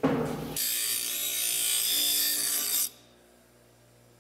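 A ringing clank of steel barrels meeting at the start, then about two seconds of steady, hissing grinding of metal on a bench grinder that stops abruptly, leaving a faint low motor hum.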